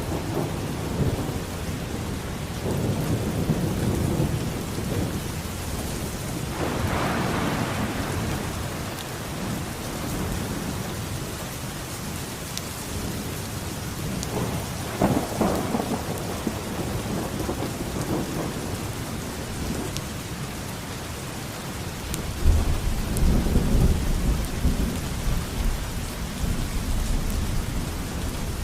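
Thunderstorm: steady rain falling, with rolls of thunder rumbling through it; a deeper, louder rumble of thunder sets in about three quarters of the way through.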